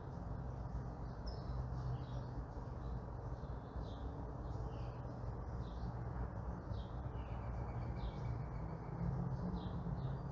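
Songbirds chirping in many short, scattered calls over a steady low rumble of distant traffic.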